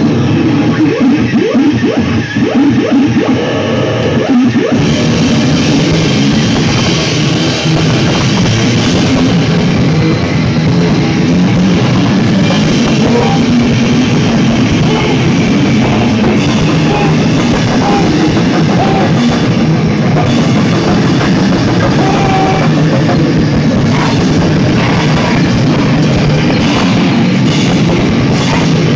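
Live rock band playing loud, with electric guitar and drum kit. It opens on held, droning notes, then drums and cymbals come in about five seconds in and the full band plays on.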